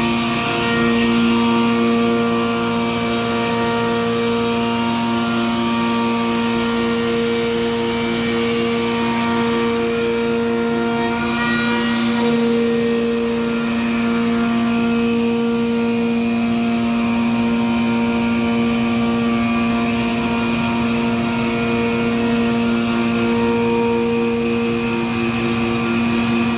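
Steady running of a MultiCam 3000-series CNC router's machinery: an even whir with several held hum tones that stay at one pitch throughout.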